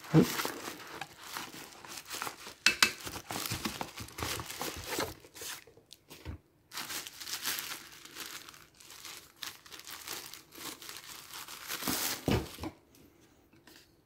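Thin plastic wrapping bag crinkling and rustling in irregular bursts as a small plastic projector light is pulled out of it and out of its cardboard box, with a short pause about six seconds in; it stops about a second before the end.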